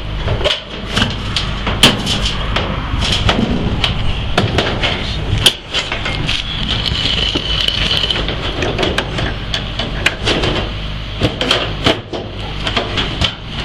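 Irregular knocks and metal clanks from work on a rooftop air-conditioning unit, over a steady low machine hum.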